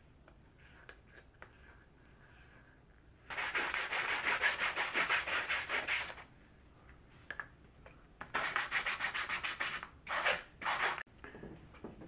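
The cut rim of an aluminium cup is rubbed back and forth on an abrasive sheet to take off the burr. It makes quick, rasping strokes in a spell of about three seconds, a second shorter spell, and then two short strokes near the end.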